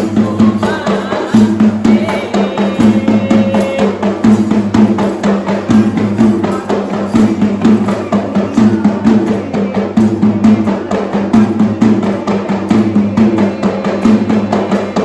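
Sri Lankan traditional drums played in a dense, fast, steady rhythm, with a brief held tone about two to four seconds in.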